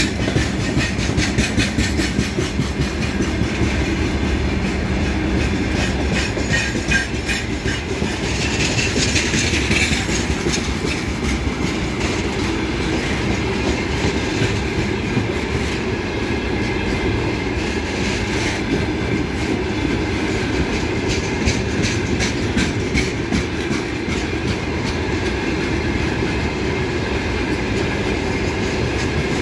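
Freight train of open-top gondola wagons rolling past close by: a steady rumble with a continuous irregular clatter of wheels clicking over the rail joints.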